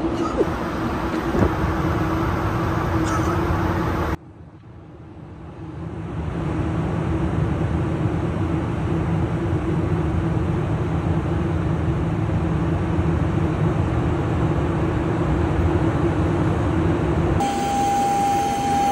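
Steady roar of a private jet's cabin in flight, engines and rushing air, broken about four seconds in by a sudden drop that fades back up over a couple of seconds. Near the end it changes to a jet's steady high whine heard outside on the tarmac.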